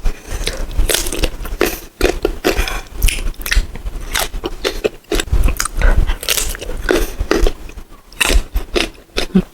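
Close-miked biting and chewing of crisp, unripe green mango: a rapid run of irregular crunches with short pauses between mouthfuls.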